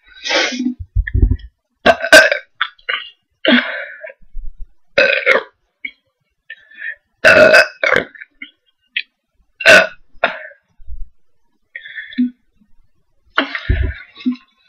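A person burping loudly again and again, a burp every second or two with short gaps between, brought on by drinking fizzy cola.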